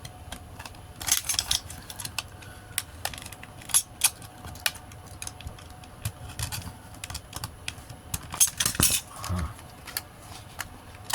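Plastic blister packaging being worked open by hand to free a diecast toy car: irregular sharp clicks and crackles of the plastic, with louder bursts about a second in and again around eight to nine seconds.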